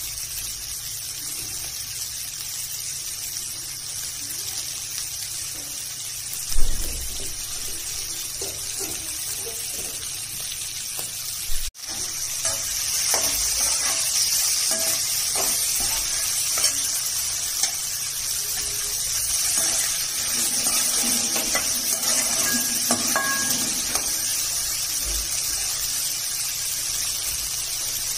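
Okra pieces sizzling in oil in a metal kadai, stirred with a perforated steel ladle that clicks and scrapes against the pan. A single thump comes about six seconds in, and the sizzle is louder after a brief break near the middle.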